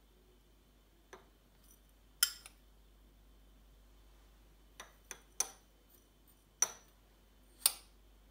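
Irregular sharp taps and clinks of small hard objects being handled and set down, about eight in all, one with a brief high ring.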